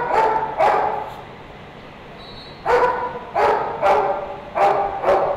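A dog barking repeatedly: two barks, a pause of about a second and a half, then a run of about five barks.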